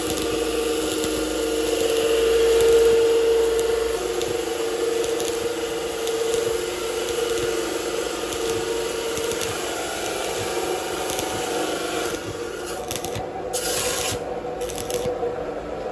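Arc welding of a boat's exhaust pipe to the hull: the steady crackling hiss of the arc over a steady hum. Near the end the crackle breaks off briefly a few times as the arc stops and restarts.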